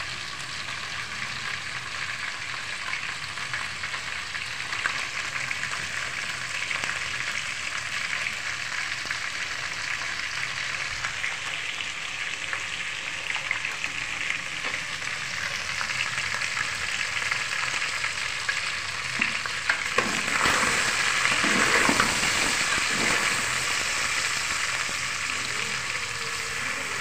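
Chicken feet frying in an aluminium pot: a steady sizzling hiss, with a louder stretch of spoon stirring and scraping against the pot about two-thirds of the way through.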